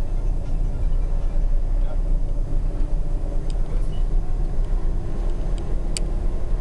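Steady low rumble of the Neoplan Jumbocruiser coach on the move, heard from inside the cab: engine and road noise. A single sharp click comes about six seconds in.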